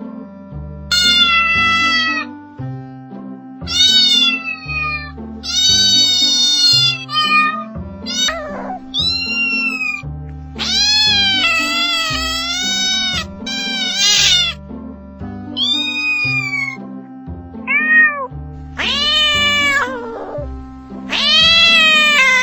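Cats meowing over and over: about a dozen drawn-out meows that bend up and down in pitch, some short and some long, with background music with a steady bass line underneath.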